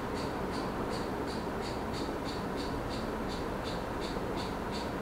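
Steady room noise with a regular, faint high ticking, about three ticks a second, from some machine running in the room.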